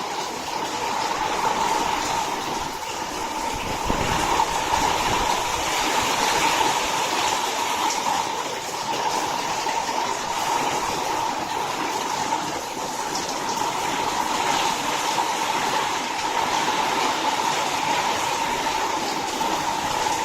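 Strong storm wind blowing, a continuous rushing noise with a steady whistling tone running through it.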